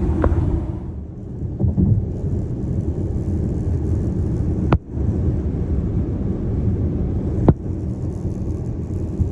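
Steady road rumble inside a BMW iX M60's cabin while driving, broken by two sharp clicks from the roof, the first about halfway through and the second nearer the end: the roof noise fault.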